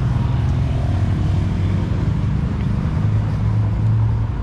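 Vehicle engines running in street traffic, a steady low hum that holds through the whole stretch.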